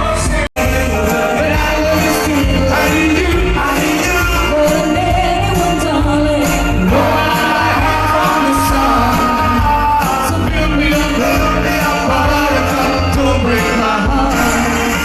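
Live band music with a singer. The sound drops out for an instant about half a second in.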